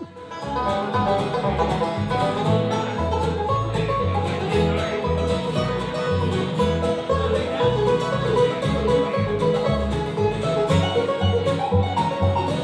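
Bluegrass band playing: picked resonator banjo to the fore over an upright bass line, with other acoustic strings. The music comes in just after the start.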